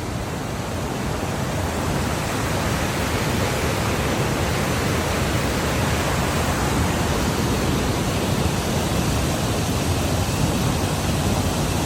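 Waterfall on Mill Creek, with water pouring over the falls in a steady rush that grows a little louder about two seconds in.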